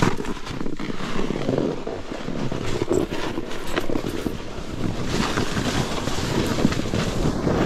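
Snowboard sliding over packed, tracked snow: a continuous rough hiss broken by many small scrapes, with wind rushing over the microphone.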